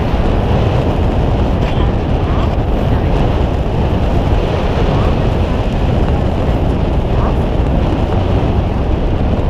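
Steady rush of wind on the microphone on the deck of a boat at sea, with the boat's engine running underneath.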